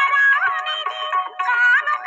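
Background music with a gliding lead melody over a steady accompaniment.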